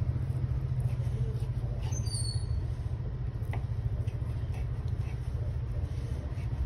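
A steady low rumble, with a few faint taps of a knife slicing through smoked chicken breast onto a wooden cutting board, one sharper click about three and a half seconds in.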